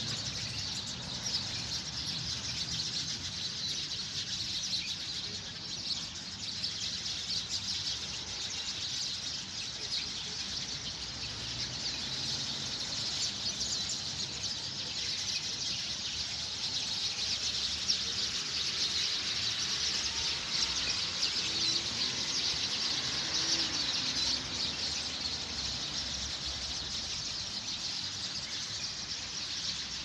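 Many small birds chirping at once in a dense, continuous chorus of high chirps.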